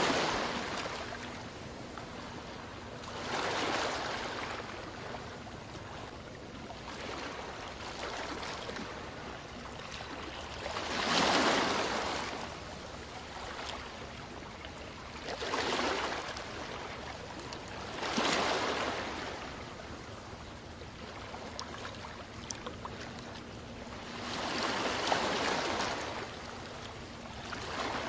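Small waves washing onto a sandy shore, each one swelling and fading every few seconds.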